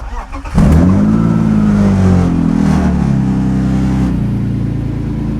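BMW M52B28 2.8-litre straight-six on a mechanical throttle body, cranked briefly, catching about half a second in with a loud flare of revs that sinks slowly and drops to a steady idle about four seconds in. The engine is still cold.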